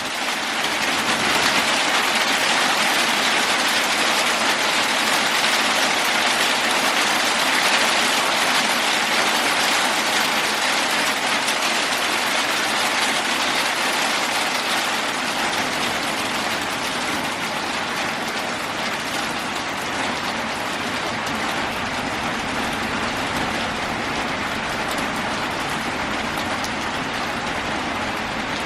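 Heavy rain falling on a metal roof: a steady, dense hiss with no thunder, easing slightly in the second half.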